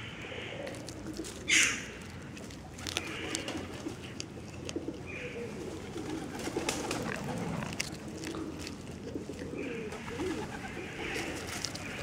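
A cat chewing and crunching boiled fish held out in a thin plastic bag, with many small crunching clicks and the bag crinkling; a sharp rustle about a second and a half in is the loudest sound.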